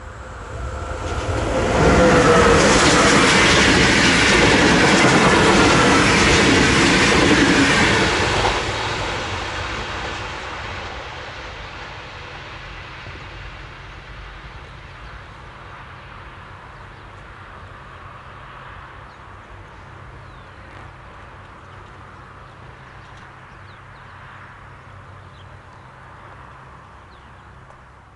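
Train passing close at speed: rumble and wheel clatter on the rails, loudest for about six seconds, with a whine that drops in pitch as it goes by. It then fades slowly into the distance.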